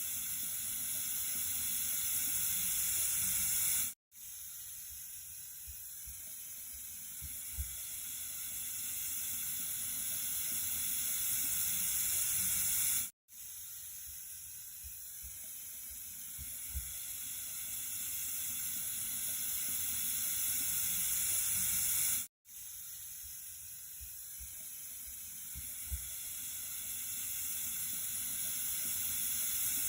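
Running water, a steady rush that is strongest in the high range and grows gradually louder over each pass. The same short recording loops about every nine seconds, breaking off sharply into a split second of silence three times.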